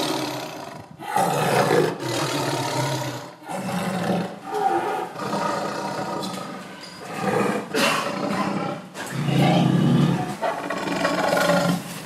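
Tiger roaring angrily: a string of drawn-out roars, each a second or two long, with short breaks between them.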